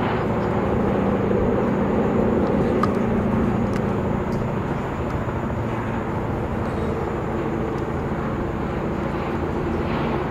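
Antonov An-70's four Progress D-27 propfan engines, each with counter-rotating propellers, running with the aircraft on the ground. The result is a steady drone carrying a few held low tones, swelling slightly a second or two in.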